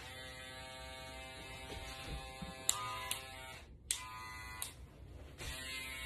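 Electric hair clippers buzzing steadily against the head during a haircut, dropping out briefly twice, with a few sharp clicks.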